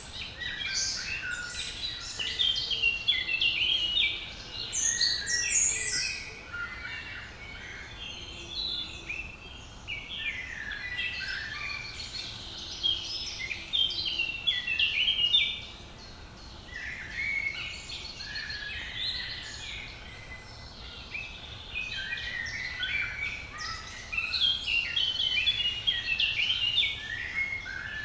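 Several songbirds singing at once: a dense, overlapping chorus of short chirps and trills that swells and eases in phrases, over a faint steady low rumble.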